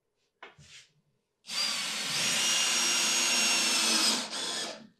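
DeWalt cordless drill driving a screw through a metal table base's mounting plate into a hard maple tabletop, running steadily for about three seconds; its whine steps up in pitch about two seconds in, drops a little near the end, then stops. A brief clack of handling comes about half a second in.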